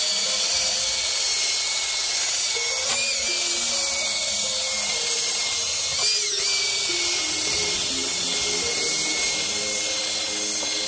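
Cordless drill spinning a wire wheel brush against an elm seat top, a steady high whine over a rough scratching hiss as the wires scour the grain; the whine dips briefly about three and six seconds in. Background music plays underneath.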